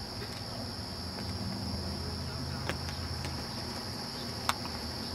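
Steady high-pitched chorus of crickets over a low rumble, with two sharp clicks, one a little under three seconds in and one near the end.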